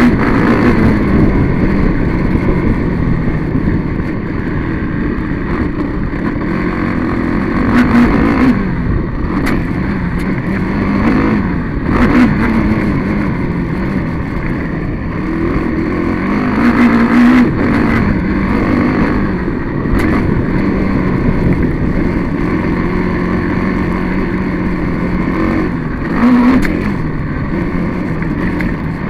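Vehicle engine heard from an onboard camera, revving up and easing off again and again under a rumble of wind and ground noise.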